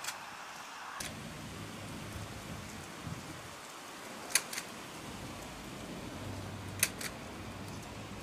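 Sharp clicks coming in close pairs, three times a few seconds apart, over a steady background hiss.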